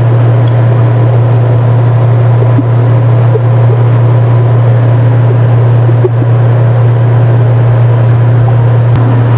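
Cabin noise of a Bombardier business jet in cruise flight: a steady, loud low hum under an even rushing hiss of engines and airflow.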